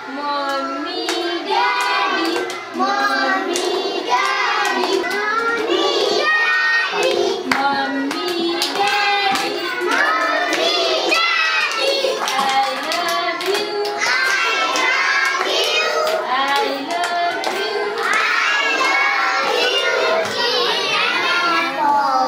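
A group of young children singing a song together, with hand claps.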